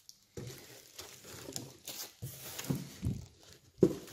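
Clear plastic wrap around spare circular saw blades crinkling and rustling as they are handled, with a sharp knock near the end.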